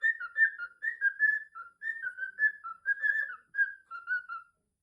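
Cockatiel singing a quick run of short whistled notes, several a second, that stops just before the end.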